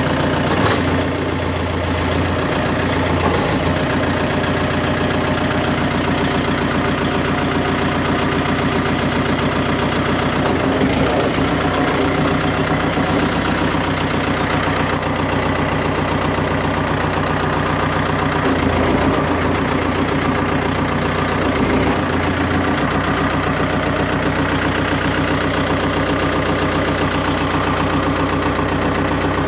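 Kubota compact tractor's diesel engine idling steadily, with a few brief changes in its note.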